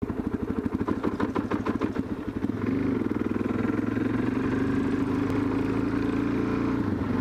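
Suzuki DR-Z400S single-cylinder four-stroke engine running as the dual-sport motorcycle is ridden along. It gives an uneven pulsing note for the first couple of seconds, then settles into a steadier, smoother note from about two and a half seconds in.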